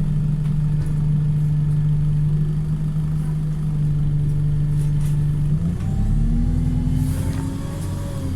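Wright StreetLite single-deck bus engine running at a steady note, then about six seconds in pulling away, the engine and drivetrain pitch rising as it accelerates, with a brief hiss about seven seconds in.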